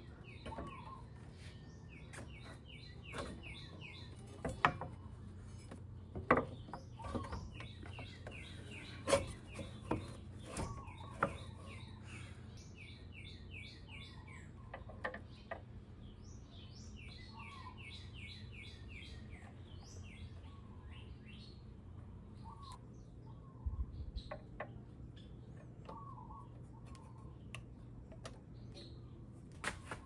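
Small birds chirping in quick repeated series, several bursts of them, with scattered clicks and knocks from a scooter front wheel and its axle collars being handled and fitted by hand.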